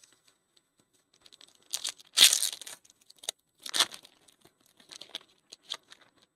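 Foil wrapper of a 2024 Panini Certified Football hobby pack being torn open and crinkled, in a few short rips and rustles, the loudest a little over two seconds in.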